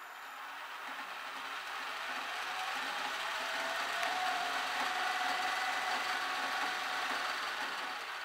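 Clarke Metalworker lathe running under its new inverter-driven three-phase motor, chuck spinning with nothing being cut. The spindle speeds up over the first few seconds with a slowly rising whine, runs steady, then begins to slow near the end.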